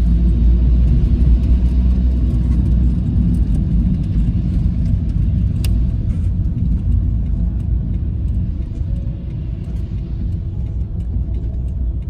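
Car driving, heard from inside the cabin: a steady low road and engine rumble that gradually eases off over the second half, as the car slows. A single sharp click comes about halfway through.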